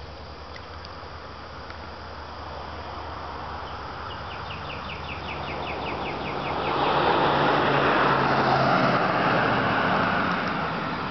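A car passing by on the street, its noise swelling to a peak about seven to ten seconds in and then fading away.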